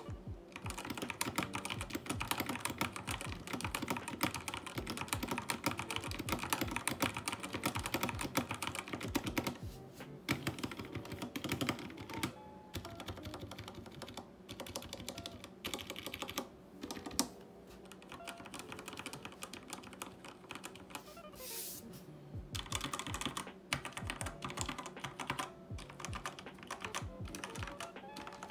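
Typing on a Redragon K552 Kumara mechanical keyboard with Outemu Red linear switches: a steady patter of fast key clicks, with a few short pauses and a quieter, sparser stretch about two-thirds of the way through.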